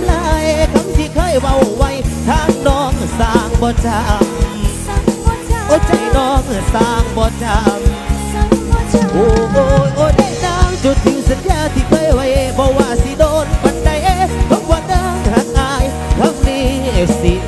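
Live Thai Isan-style band music: a steady drum-kit beat under a wavering, ornamented melody line.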